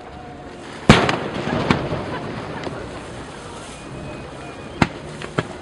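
Aerial fireworks. One loud bang about a second in trails off over a second or so with a few smaller cracks, and two more sharp pops come near the end.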